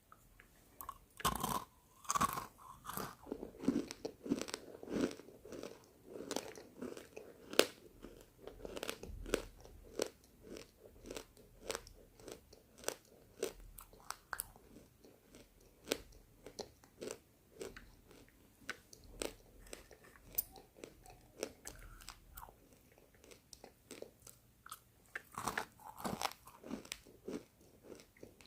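Roasted pink chalk being bitten and chewed: a dense, irregular run of sharp crunches and snaps as the roasted pieces are crushed between the teeth.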